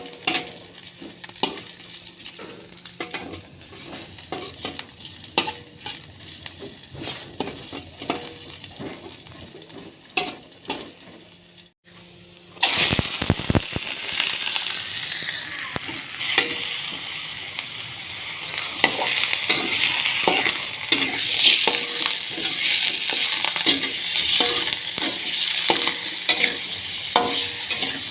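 Food frying in hot oil in a pan, stirred with a utensil. The first half holds only scattered clicks and scrapes of the utensil against the pan, then a loud sizzle starts about halfway through and carries on under the stirring.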